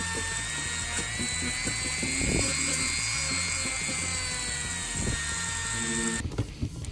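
Handheld rotary tool running with a steady high whine as it buffs a diecast car's chrome-plated base, its pitch rising slightly partway through, over background music. The tool stops about six seconds in.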